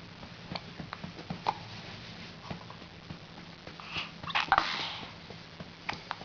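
A baby hiccuping and snuffling: scattered soft clicks and breaths, with a louder, sudden breathy sound about four and a half seconds in.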